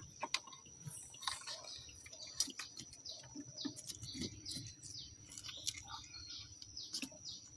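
Faint outdoor ambience of small birds chirping: many short, scattered falling chirps, over a thin steady high-pitched tone.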